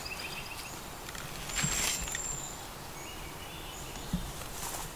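Wild birds singing: short, high, thin whistled notes at several pitches over a soft steady outdoor background, with a short burst of louder noise about a second and a half in.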